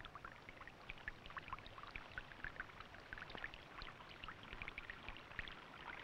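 Faint running water of a stream: a steady patter of many small trickles and splashes.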